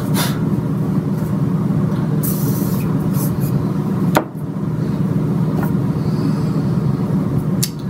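A steady low mechanical hum throughout. About two seconds in comes a short hiss from a spray bottle, and a little after four seconds a single click.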